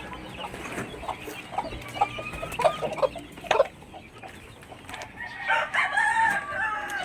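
Backyard chickens clucking with short calls, then a rooster crowing once, a long call of about two seconds, near the end.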